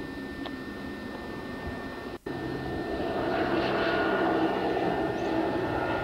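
A steady hiss, cut by a brief dropout about two seconds in, then a louder, steady engine-like drone with a faint wavering hum.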